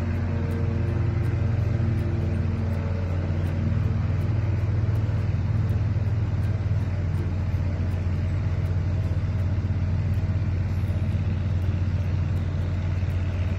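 A steady low rumble, with a faint multi-tone hum that fades out over the first couple of seconds.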